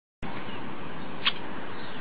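Steady background hiss with one short high chirp about a second in.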